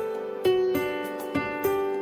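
Background music: a gentle melody of struck notes, four in this stretch, each ringing out and fading before the next.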